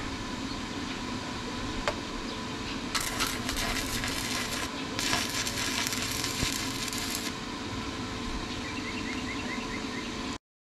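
Wire-feed (MIG-type) welder welding a bracket onto a steel pipe: two bursts of steady crackling and hissing from the arc, the first starting about three seconds in and the second lasting about two seconds.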